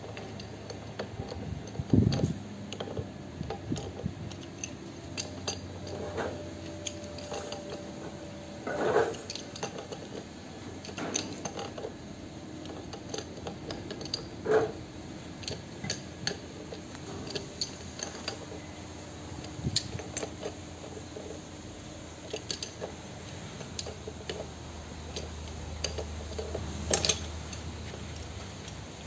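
Scattered metallic clinks and knocks of a pipe wrench and spanner against the steel gears and castellated nut of a truck differential, with a few louder knocks spread through.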